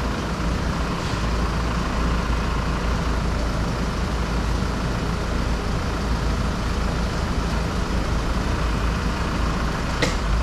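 Flatbed truck engine idling, a steady low rumble, with a single sharp knock near the end.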